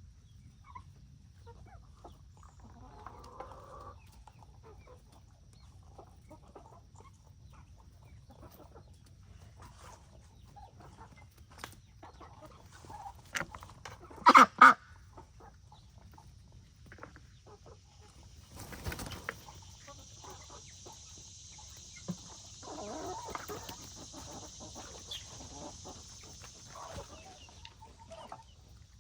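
Chickens clucking among scattered soft sounds, with two loud short calls just past halfway.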